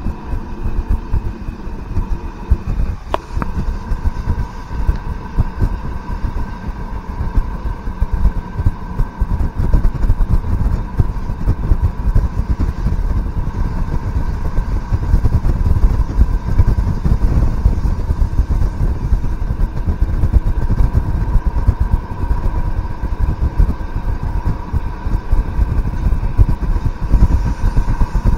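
ALn 668 diesel railcar under way: a steady rumble of engine and wheels on rail with a steady high whine over it, and a single sharp click about three seconds in. The noise grows a little louder after about nine seconds.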